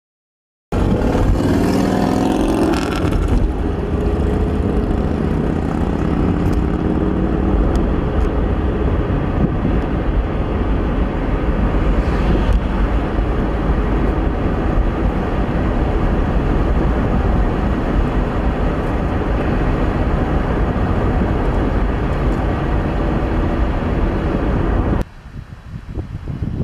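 Car driving, heard from inside the cabin: a loud, steady rumble of engine and road noise. Near the end it cuts off abruptly to much quieter outdoor sound.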